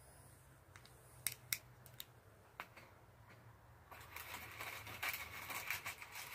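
Faint clicks of 6mm BBs being pushed into a P328 airsoft pistol's spring-loaded magazine. A few single clicks come first, then a denser run of clicking and rattling about four seconds in.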